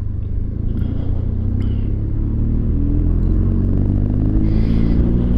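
BMW R1200GS flat-twin boxer engine running under way, its note climbing steadily through the second half as the bike accelerates.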